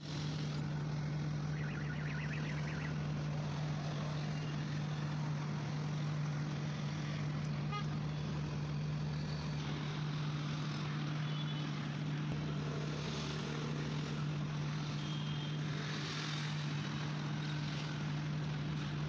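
Steady machine drone at one unchanging low pitch, over a bed of noise.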